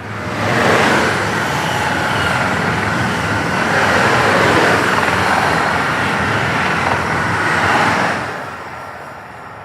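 A train passing by: a loud rushing of wheels and air that swells within the first second, holds for about seven seconds, then dies away near the end.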